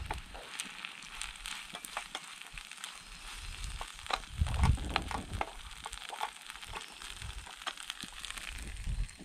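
Wooden spoon stirring and tossing noodles in a small metal frying pan, the Excalibur Flypan: soft scrapes and clicks of the spoon against the pan over a light sizzle from the hot pan, with one louder knock about four and a half seconds in.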